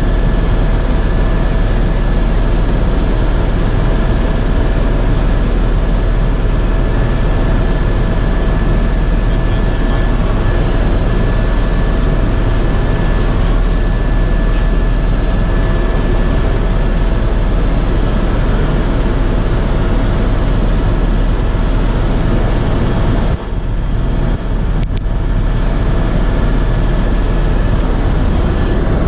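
Helicopter in flight heard from inside the cabin: a loud, steady drone of rotor and turbine noise with thin, steady whine tones over it, dipping briefly about 23 seconds in.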